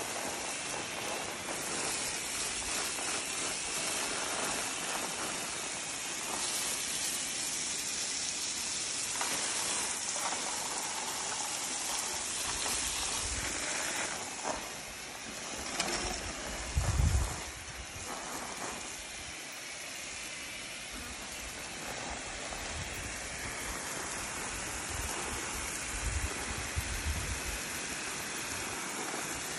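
Garden hose with a spray nozzle jetting a fine mist of water onto plants and soil: a steady hiss of spray throughout. A few low thumps are heard about halfway through and again near the end.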